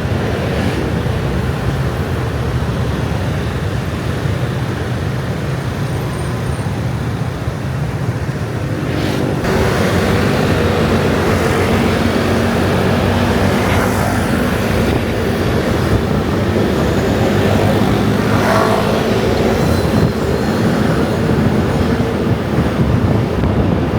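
Dense scooter traffic streaming past: many small motorbike engines running together as a steady drone, getting louder about ten seconds in as nearer engines' hum rises above it.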